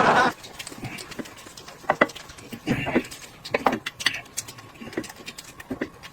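Scattered short clicks and knocks of tableware, such as chopsticks and dishes, coming irregularly about once a second.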